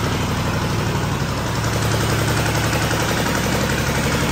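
An engine-driven machine running steadily: a low hum with a fast, even throb.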